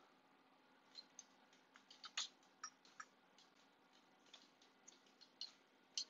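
Near silence with faint, scattered light clicks and taps, the loudest about two seconds in.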